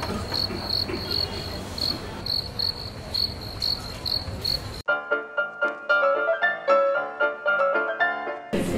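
Cricket chirps, a high chirp repeating about three times a second over low room hum. About five seconds in they cut off abruptly and a short instrumental tune plays.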